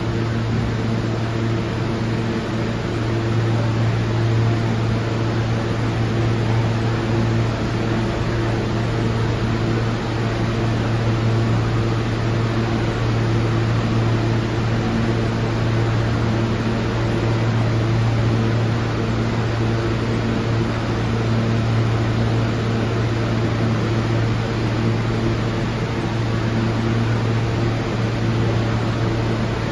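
R160A subway train standing at the platform, its air-conditioning and auxiliary equipment giving a steady hum with a strong low drone and several fainter tones above it.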